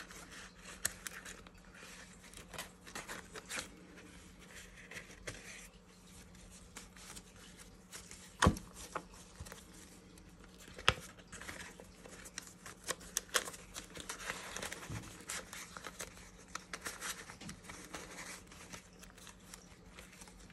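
Paper banknotes being counted and handled, an irregular rustling and flicking of bills, with crinkling from the binder's plastic sleeves. Two sharper clicks come about halfway through.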